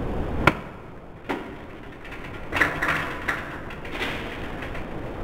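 Knocks, thuds and taps of a parkour vault over a metal railing fence: running footfalls, hands striking the rails and feet landing. A sharp knock about half a second in is the loudest, with a run of thuds around the middle.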